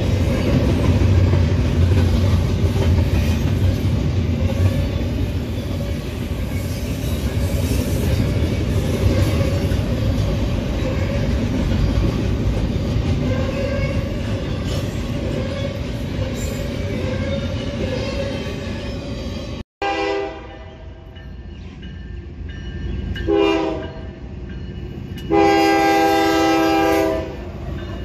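Double-stack container freight train rolling past, a steady heavy rumble of wheels on the rails. After an abrupt break, a diesel locomotive horn sounds three blasts, two short and a final one about two seconds long.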